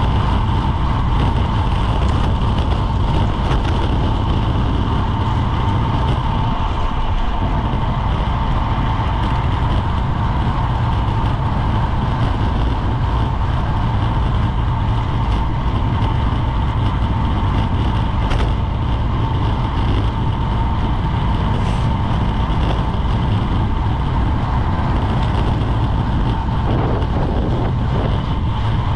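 Wind rushing over a bike-mounted GoPro's microphone at racing speed, mixed with tyre and road noise: a loud, steady low rumble with a thin steady hum above it.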